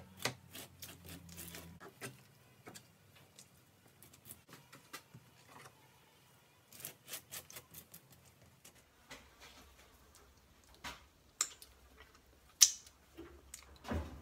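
Plastic capping scraper scratching and crackling across the wax cappings of a honey frame in short, irregular strokes. A few sharper knocks come near the end.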